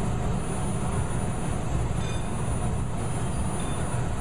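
Steady low mechanical rumble of a powered rotary bending machine running as it bends a red-hot steel bar, with a faint steady high whine above it.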